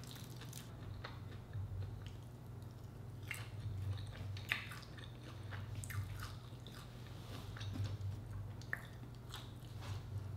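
Close-miked eating by hand: fingers picking at fried fish and rice, then chewing with scattered small wet clicks and smacks of the mouth, over a steady low hum.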